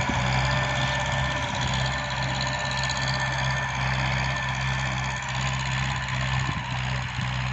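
TAFE tractor's diesel engine running steadily while it pulls a PTO-driven rotary tiller through a field, a constant low engine drone with a few steady higher whining tones over it.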